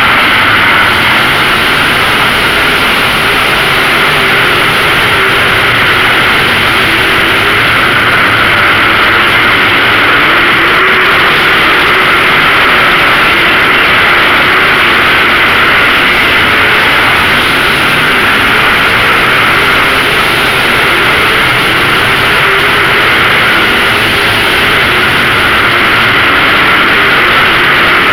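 A field of late model race cars running at speed, their engines a loud, steady, continuous drone with a faint wavering pitch.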